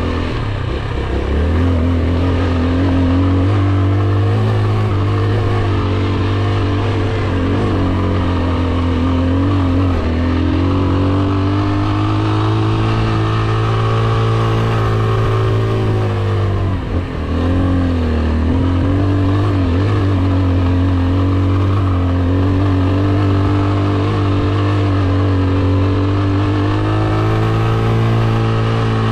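AKT TT 200 DS motorcycle's single-cylinder engine running at steady throttle under way. A little past halfway the throttle is briefly closed, the pitch dips, and then it picks back up.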